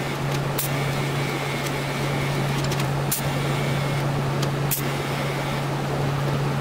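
TIG welder running as a steel bolt is welded onto the end of a shift lever: a steady hum under a hiss, with a few sharp clicks.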